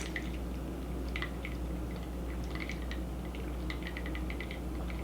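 Faint, irregular wet clicks and squishes of eating saucy food, with a low steady hum underneath.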